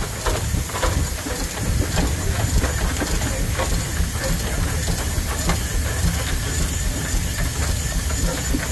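Steam traction engines under steam: a steady hiss of escaping steam over a low, even rumble, with scattered clicks and knocks.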